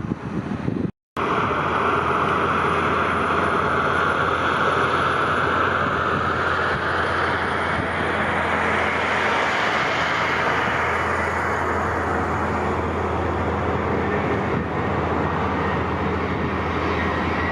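Jet airliner's engines running loud and steady as it passes close by, the rushing noise shifting slowly higher in pitch and then easing off. A brief break about a second in.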